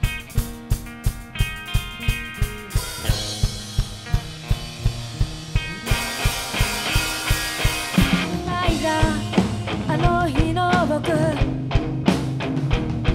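Rock band playing an instrumental passage: drum kit keeping a steady beat, about three hits a second, under electric bass and guitar. About eight seconds in the band gets fuller and a bending lead melody comes in.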